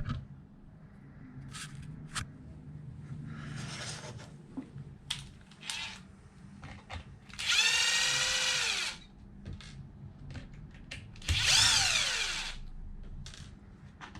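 Small electric drill/driver running twice, for about a second and a half each time, once about halfway through and once near the end. As each run stops, the motor's pitch falls away. It is working small bolts on the RC car chassis, with light clicks of parts being handled in between.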